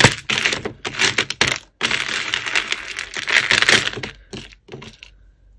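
A hand rummaging through a plastic tub of costume jewellery: strings of beads and faux pearls, metal chains and pendants clattering and jingling together in rapid, dense clicks. The rattling stops near the end.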